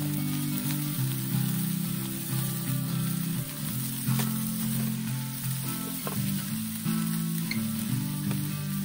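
Chicken breast, sausages and potato slices sizzling on a round metal griddle plate over a wood fire, with a few light clicks as the pieces are turned. A low, stepping line of background music runs under it.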